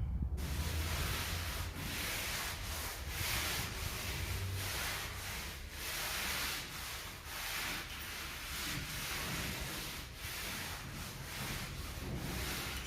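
A steel trowel scraping and smoothing a cement mortar floor bed in repeated, uneven strokes, about two a second.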